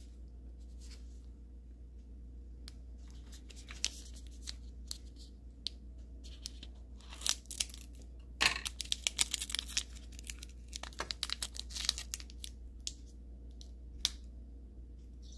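Wrapper of a compressed compact towel being torn open and crinkled by hand: scattered crackles at first, then a dense run of tearing and crinkling from about the middle, and a single sharp click near the end.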